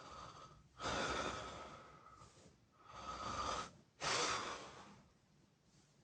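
A person snoring in sleep: three heavy noisy breaths, starting about a second in, about three seconds in and a little after four seconds, the first two carrying a thin steady whistling tone and the last one short.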